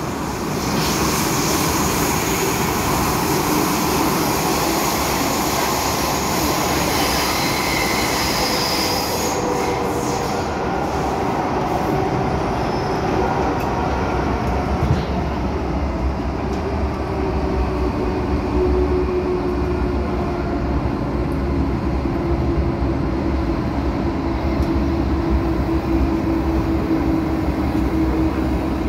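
MTR M-Train electric multiple unit running, heard from inside the carriage: a continuous rumble of wheels on rail. A high squeal sits over it for the first nine seconds or so, and a steady low whine grows in the second half.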